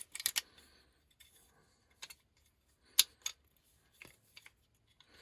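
Sharp clicks and light knocks of an airsoft Glock 19's parts being handled and fitted together. There are a few scattered clicks, the loudest about three seconds in.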